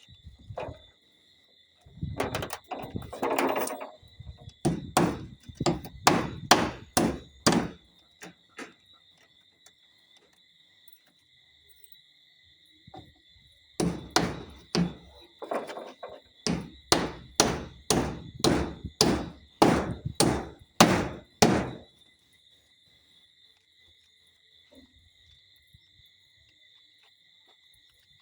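Hammer blows driving nails, in runs of quick strikes about two a second, with a pause between runs. Steady faint insect trilling underneath.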